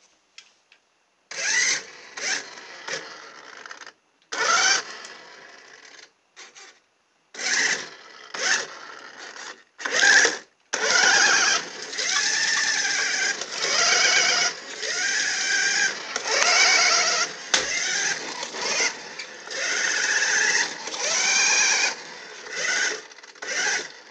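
A toy radio-controlled Mini Cooper's small electric drive motor and gears whine in short bursts of throttle, then run almost without a break through the second half, the pitch rising and falling as the car speeds up and slows. The wheels are struggling for grip on the smooth floor.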